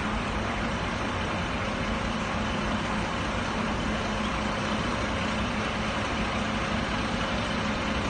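A bus running close by with a steady low hum as it moves off from the stop.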